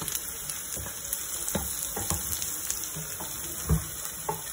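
Diced vegetables and peanuts sizzling in ghee in a frying pan, a steady high hiss. A few soft knocks, the loudest about three and a half seconds in.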